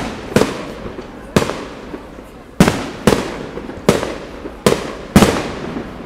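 Aerial fireworks shells bursting: about seven sharp bangs at irregular intervals, each trailing off in echo.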